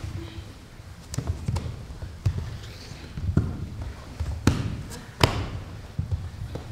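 Irregular thuds and slaps of hands, knees and bodies on a stage floor as a group of performers crawls and piles together, a few louder knocks about four and a half and five seconds in.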